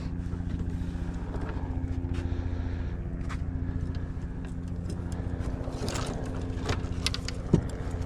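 An engine running at a steady idle, a low even hum with a fast regular pulse, with a few short clicks and knocks of fishing tackle being handled near the end.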